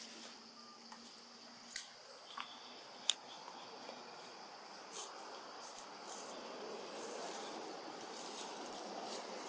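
Forest ambience: a steady high insect drone from crickets or cicadas, with scattered sharp clicks, the loudest about three seconds in, and a soft noise that grows a little louder in the second half.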